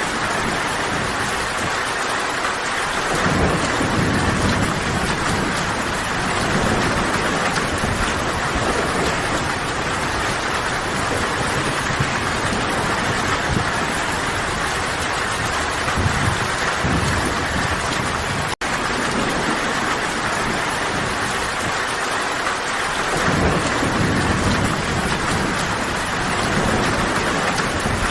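Steady heavy rain falling on forest foliage, with low rumbles of distant thunder swelling about three seconds in and again near the end. The sound cuts out for an instant about two-thirds of the way through.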